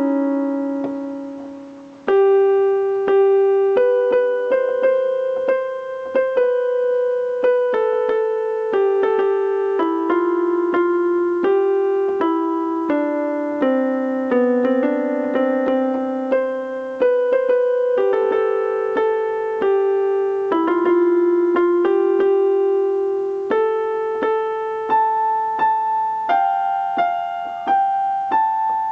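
Piano-like keyboard playing a slow, gentle melody of sustained, ringing notes over chords. A chord fades away at the start, and the playing picks up again with a firm new chord about two seconds in.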